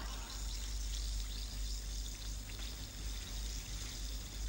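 Effervescent antacid tablet fizzing as it dissolves in a glass of water: a faint, steady crackle of bubbles.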